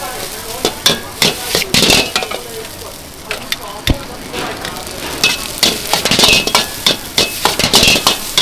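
Fried rice sizzling in a wok while a metal ladle scrapes and clanks against the pan in quick, irregular strokes, some with a short metallic ring, and one sharp knock about four seconds in.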